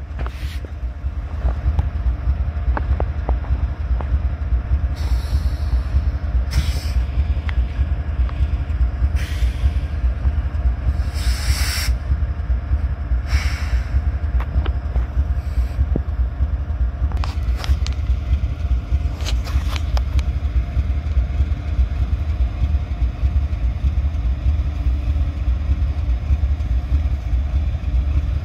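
Diesel locomotives rumbling low and steady as Illinois Central SD70 units switch slowly through the yard, with wind buffeting the microphone. Several short bursts of hiss come between about five and fourteen seconds in.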